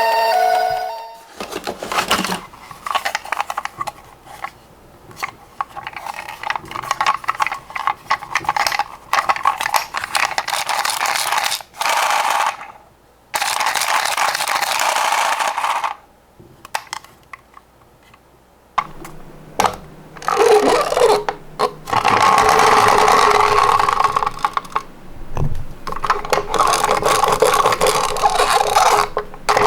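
A toy ambulance minicar's electronic siren cuts off about a second in. Then the minicar rolls along a slope several times, its small wheels giving rattling, whirring runs of one to three seconds each with short pauses between.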